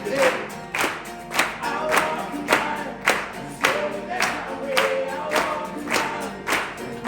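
Unplugged acoustic pop song continuing without words: sharp percussive strokes on a steady beat about twice a second under held sung notes from several voices.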